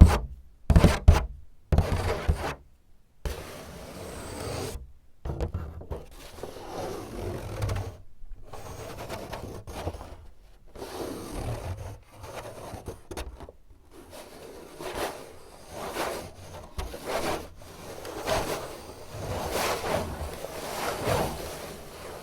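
A few quick taps, then steady scratching and rubbing across a surface that swells and fades without a break.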